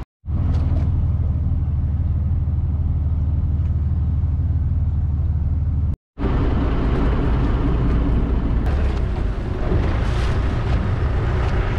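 Small boat's engine running with a steady low hum, cut off for a moment. It comes back with a broader rush of noise over the hum, as of the boat under way.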